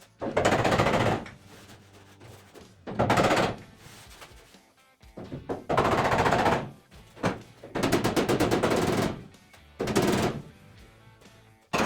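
Metalworking tool on car body sheet metal, worked in five short bursts of rapid crackling or rattling, each about half a second to a second long, with pauses between.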